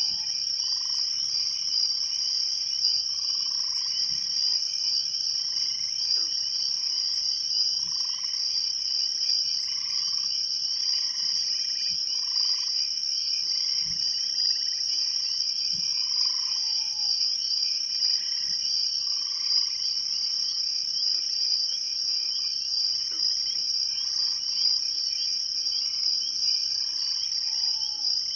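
Night chorus of crickets trilling steadily, with frogs calling in short notes about once a second and a brief high chirp every few seconds.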